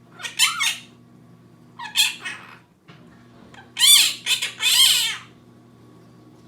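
Quaker parrot (monk parakeet) giving harsh squawking calls in three bursts: one near the start, one about two seconds in, and a longer run of calls about four to five seconds in. A faint steady low hum lies underneath.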